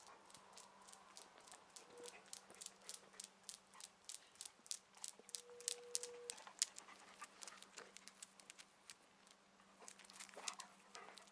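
A dog, half Tosa Inu, panting and ticking along on asphalt close by: a quick run of faint sharp clicks, about three or four a second, loudest in the middle.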